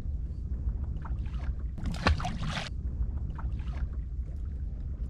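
Steady low rumble of a small fishing boat at sea, with a few light ticks and a short splashing clatter about two seconds in as fish come off a multi-hook handline.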